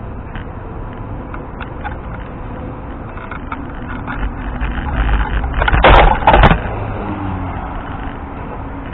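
Wind and road noise of a scooter ride picked up by a helmet-side microphone, a steady rumble, with a brief loud rush and a few sharp knocks about six seconds in.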